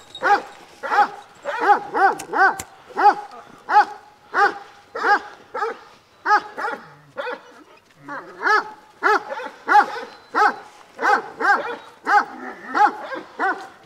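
A dog barking over and over, about one and a half barks a second, with a short pause a little past the middle.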